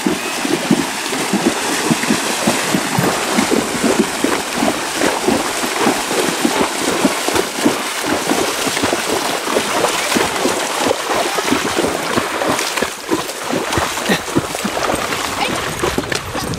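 Horses wading through shallow lake water, their legs churning up a steady, irregular splashing.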